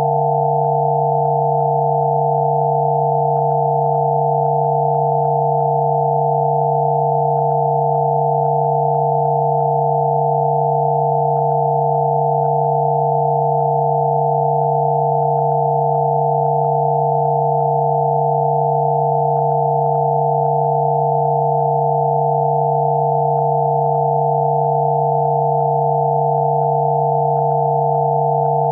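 Several electronically generated sine tones held together without change, one low tone under a cluster of higher ones: a synthesized Rife frequency therapy tone.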